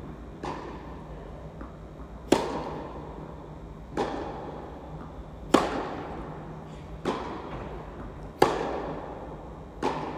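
Tennis rally: a ball struck by rackets back and forth, seven sharp pocks about one and a half seconds apart. Loud hits alternate with fainter ones, each echoing in the large indoor hall.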